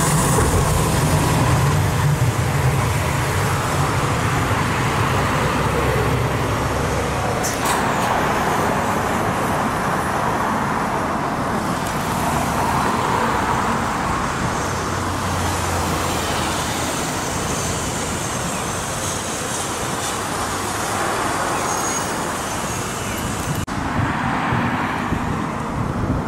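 Steady city road traffic. A Hiroden 1000-series low-floor tram passes close in the first several seconds with a low rumble, and cars go by after it. There is a single sharp click about seven and a half seconds in.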